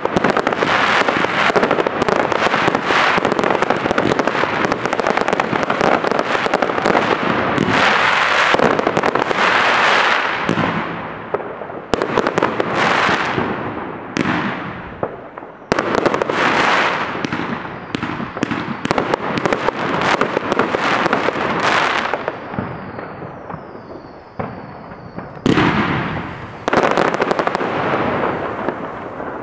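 Fireworks going off: a dense, continuous barrage of bangs and crackling for about ten seconds, then separate sudden bursts, each trailing off into crackle. A faint falling whistle sounds briefly a little past the two-thirds mark.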